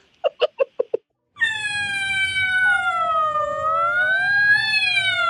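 A cat's long drawn-out yowl, wavering down, up and down again in pitch, after a quick run of five short, sharp sounds.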